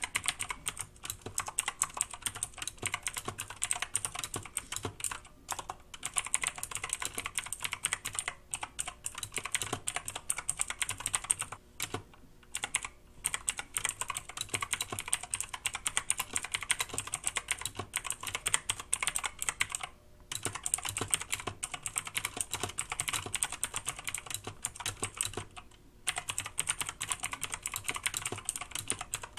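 Fast, continuous typing on a Yeyian Flare 2000 series mechanical keyboard with blue switches, which give a sharp click on every keystroke. The typing pauses briefly a few times.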